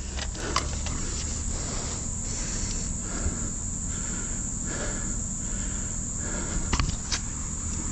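Steady high-pitched trilling of insects over a low steady hum, with a few faint clicks.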